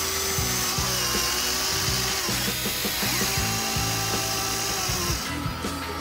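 Background music with a small motor whirring over it, a high whine that starts about half a second in and stops a little after five seconds.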